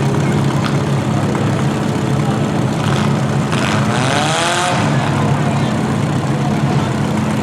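Demolition derby compact cars' engines running in a steady drone, with one engine revving up in rising pitch about four seconds in.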